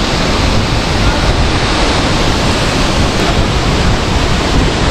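A waterfall about 40 metres high, heard close up as it plunges into its pool: a loud, steady rush of falling water and spray.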